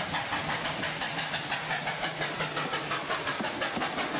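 Steam locomotive chuffing sound effect for a toy Thomas train: a fast, even rhythm of hissing chuffs.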